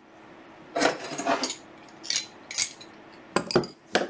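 Metal wrenches clinking and knocking against each other and the tabletop as they are handled, one put down and another picked up from a pile, in four or five short runs of clinks.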